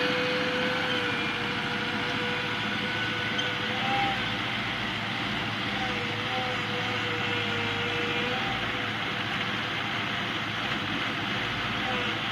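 Skid steer loader running at a steady engine speed, with a steady whine that wavers slightly in pitch.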